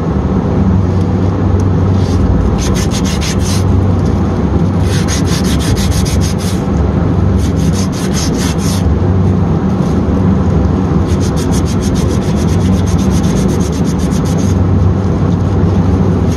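A sandpaper strip is pulled back and forth around a copper refrigerant line, cleaning the copper before it is heated and unsweated. The fast rasping strokes come in several spells with short pauses between them. A steady low machinery hum runs underneath.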